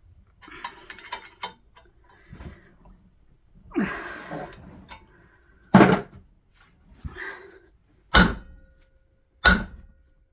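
Metal tools and parts clattering, then three hard metal-on-metal strikes in the second half, the loudest first, each ringing briefly, from work on a steel bolt of a potter's wheel.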